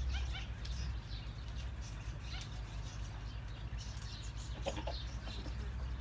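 Birds chirping faintly in short high calls, most of them in the first half-second, over a steady low hum.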